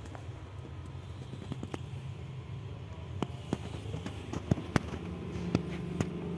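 A steady low rumble, with scattered sharp clicks and knocks that come more often in the second half.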